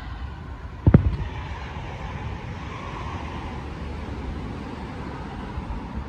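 A single firework shell bursting with a sharp boom about a second in, over a steady low rumble from the fireworks display.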